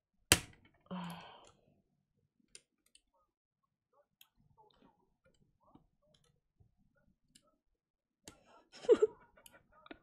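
Mechanical keyboard switches being wrenched out of hot-swap sockets with a wire switch puller: one loud, sharp plastic click just after the start, then scattered faint clicks and scrapes of the switch housings. Near the end comes a short strained cry from the person pulling.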